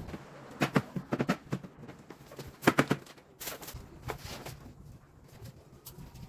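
Irregular sharp taps and clicks, a few in quick clusters of two or three, loudest about a second in and again near three seconds in.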